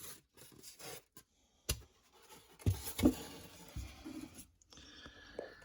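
Styrofoam packing rubbing and scraping as a boxed item is worked out of it, with a sharp click a little under two seconds in and a couple of dull thumps about a second later.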